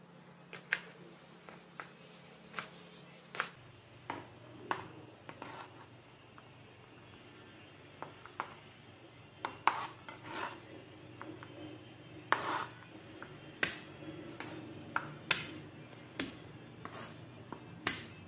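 Kitchen knife chopping an onion on a cutting board: irregular sharp knocks of the blade striking the board, with a pause of a couple of seconds about a third of the way through.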